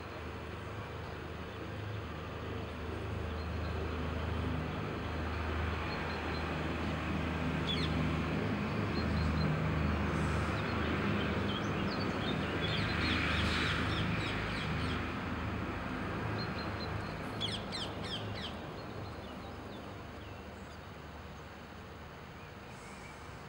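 Outdoor background sound: a low steady hum that grows louder through the middle and fades again toward the end. Bird calls come through several times, with a quick cluster of them about seventeen seconds in.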